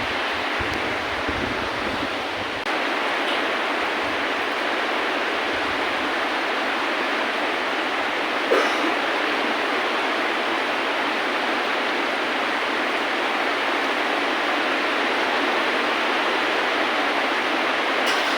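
Steady, heavy rain falling: a dense, even hiss. A single sharp tap sounds about eight and a half seconds in.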